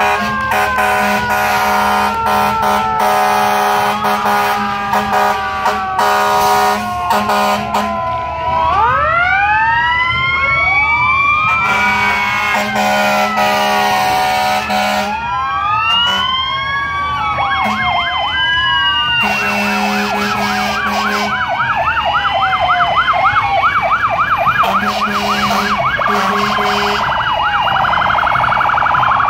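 Several emergency-vehicle sirens sounding at once, their wails rising and falling over each other, with a fast yelp taking over about two-thirds of the way through. Long horn blasts sound four times.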